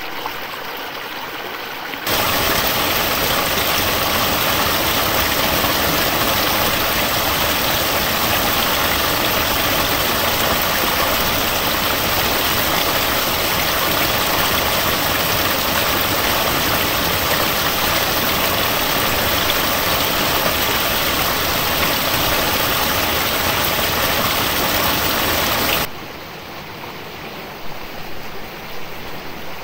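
Loud, even rush of flowing water that starts abruptly about two seconds in and cuts off abruptly near the end, with a quieter trickling stream before and after it.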